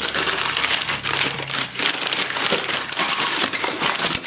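A paper bag being crumpled and rustled by hand, with a continuous crackling rustle.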